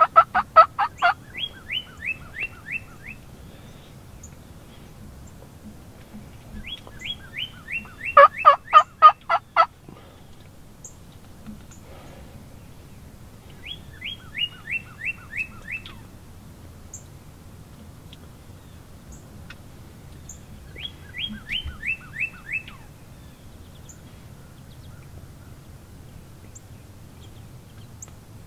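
Wild turkey toms gobbling: two loud rattling gobbles, one right at the start and one about eight seconds in, with fainter gobbles in quick falling series recurring every six or seven seconds.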